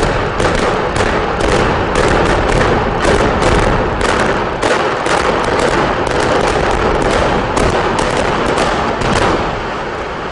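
Explosive demolition charges going off in a rapid, uneven string of sharp cracks for about nine seconds, over a continuous loud rumble as the steel-framed power plant building collapses. The cracks stop near the end and the rumble eases.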